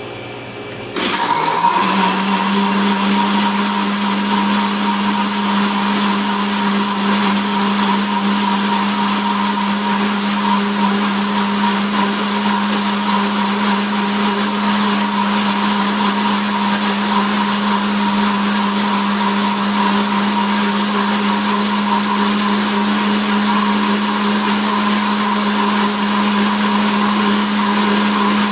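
Countertop glass-jar blender switched on about a second in, its motor spinning up within a second and then running at a steady speed, churning plain water.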